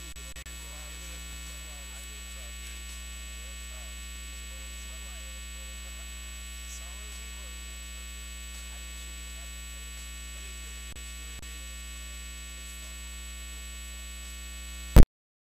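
Steady electrical mains hum with a buzzy stack of overtones, running at an even level. Near the end comes a single loud click, and the sound cuts out for a moment.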